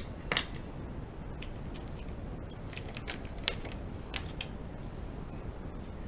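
Several small, sharp clicks and taps from hands handling a pen over a sheet of paper, scattered irregularly and the sharpest about a third of a second in, over a steady low background rumble.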